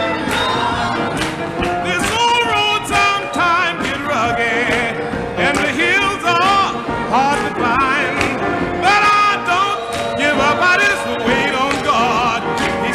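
Live gospel music: a tenor voice singing with heavy vibrato, backed by a choir, piano and electric guitar.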